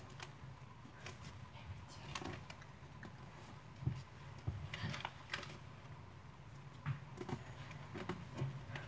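Soft rustling and creasing of a square sheet of origami paper being folded and pressed flat by hand, with scattered light clicks and taps, over a low steady hum.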